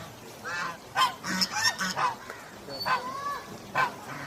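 A duck calling while it swims: a run of about seven short quacking calls, several close together in the first two seconds, then two more spaced out near the end.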